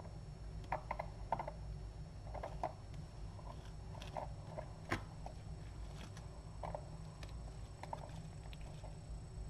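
A cat's soft licking and nibbling sounds: irregular small clicks, with a sharper click about five seconds in, over a steady low hum.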